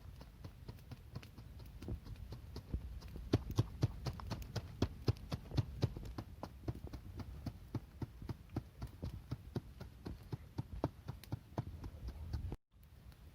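Rapid, uneven series of sharp knocks, about five a second, over a low rumble.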